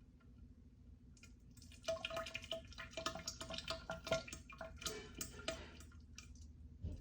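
A wet, spluttering bout of diarrhea with gas, splattering into toilet water. It starts about two seconds in as a dense crackling sputter with a held buzzing tone, runs for about four seconds, then trails off.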